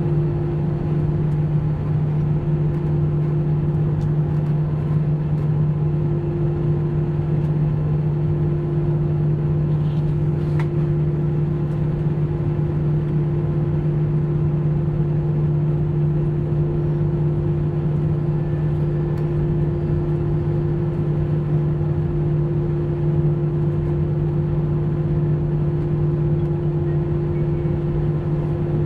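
Airliner cabin noise during taxi, heard from inside the cabin: the jet engines at low taxi thrust give a steady drone with two constant low tones over a low rumble.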